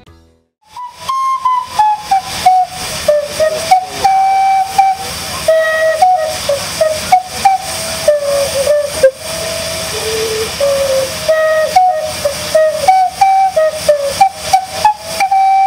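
Steam calliope playing a tune: its steam whistles sound one note after another in a melody, each note starting with a sharp hiss of steam. The playing begins about a second in.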